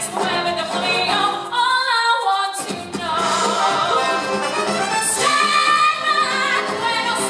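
A musical-theatre song: a woman sings the lead over instrumental accompaniment. The bass drops out briefly about two seconds in, then comes back.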